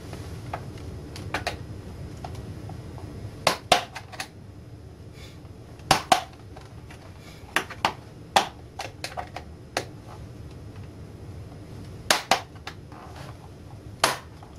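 Sharp plastic clicks and snaps, several in quick pairs, from a ViewSonic VG730m LCD monitor's plastic casing being pried away from the screen, its retaining tabs popping loose.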